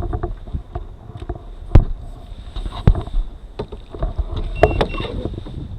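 Scattered knocks and clunks of the transducer mount and pole being handled and positioned against the aluminium boat, over a low wind rumble on the microphone. Two short high beeps come about three-quarters of the way through.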